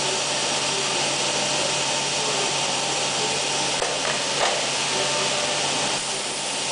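Biesse Rover 322 CNC router running: a steady, airy machine hiss over a constant low hum. A couple of light knocks come about four seconds in.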